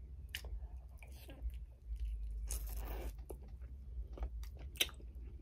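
A person eating a red candy close to the microphone: wet smacking and clicking mouth noises with a few soft crunches.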